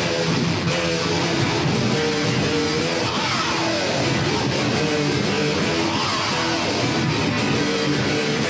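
Rock music led by electric guitar, playing held notes and strummed chords.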